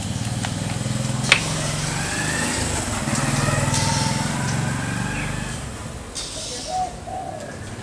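Makita AC401NX air compressor running with a steady hum. There is a sharp click a little over a second in, the compressor grows louder in the middle and eases off near the end.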